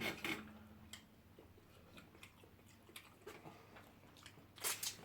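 Faint eating noises: scattered small clicks and smacks of chewing. A brief louder noisy sound comes right at the start and another near the end.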